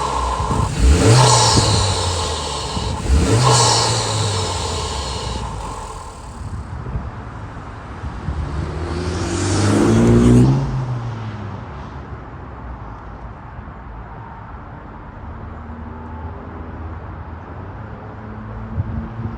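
Honda Civic Type R (FL5) turbocharged 2.0-litre four-cylinder breathing through a K&N drop-in air filter, revved in two quick blips that each fall straight back. About eight seconds in it accelerates hard, rising in pitch and loudness, then stops abruptly, leaving a quieter steady engine sound.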